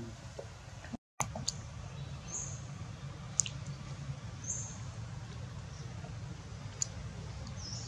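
Outdoor ambience: a steady low rumble with a few brief high-pitched chirps and faint clicks, the sound cutting out for a moment about a second in.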